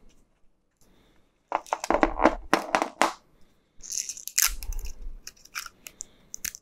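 Plastic wrapper and vent tape being peeled and torn off inkjet ink cartridges, in two bouts of rapid crackles, the first about one and a half seconds in and the second about four seconds in.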